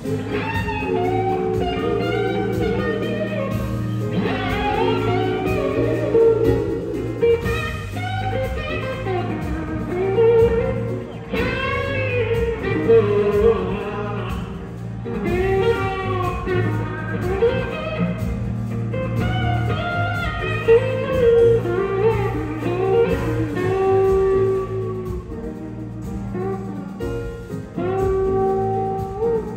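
Live blues-rock band playing: an electric slide guitar solos in gliding, wavering notes over steady bass and drums.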